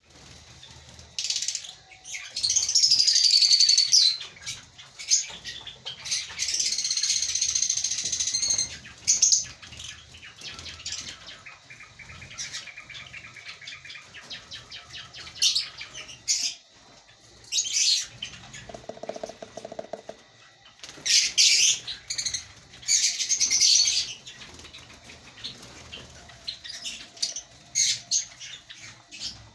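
A colony of African lovebirds calling: shrill, high-pitched chirps and screeches in bursts of a second or two, with quieter chatter between them.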